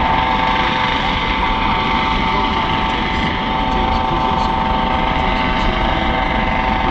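Coast Guard MH-65 Dolphin helicopter hovering: a steady turbine whine over constant rotor noise.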